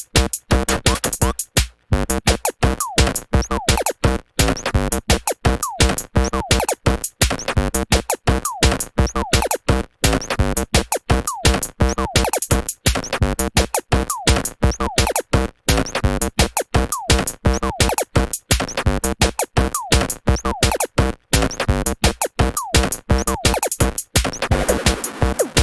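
Electronic music with a fast drum-machine beat and synthesizer sounds.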